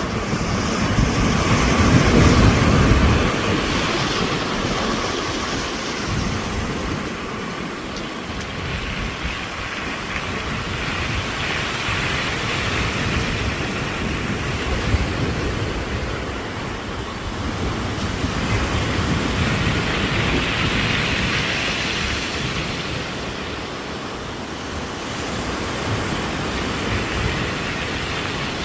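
Sea waves breaking on a rocky, pebbly shore, the hiss of the surf swelling and easing back every several seconds and loudest near the start, with wind buffeting the microphone.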